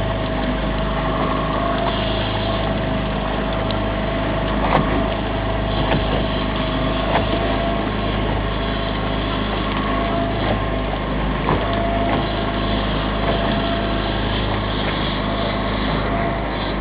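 Fishing boat's engine running steadily, with a few scattered small clicks and knocks over it.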